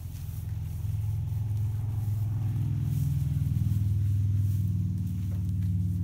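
Large wall-mounted barn fan running, a steady low hum that grows louder over the first few seconds as the microphone comes closer to it.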